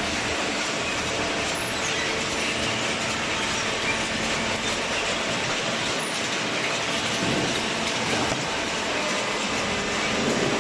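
Horizontal hydraulic baler for corrugated cardboard running: a steady mechanical din with a faint hum underneath.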